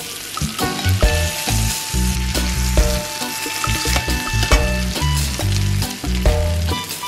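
Floured kahawai fillets frying in butter in a pan, a steady sizzle with a few small clicks, under a background music track.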